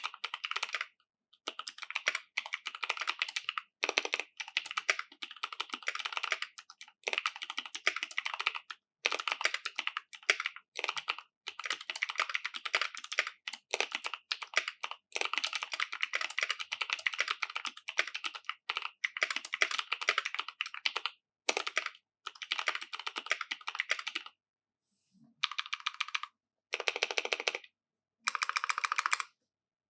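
Typing on a mechanical keyboard with lubed Clickiez clicky switches in an aluminium plate: runs of sharp key clicks in bursts with short gaps. Near the end, after a short pause, come three brief runs of fast, evenly spaced clicks.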